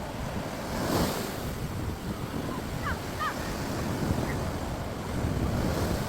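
Sea waves breaking on a beach, the surf swelling about a second in and again near the end, with wind buffeting the microphone.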